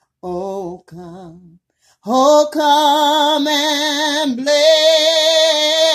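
A woman singing a worship song unaccompanied: a short phrase, then from about two seconds in a long, loud held note with a wide vibrato that dips briefly and holds again.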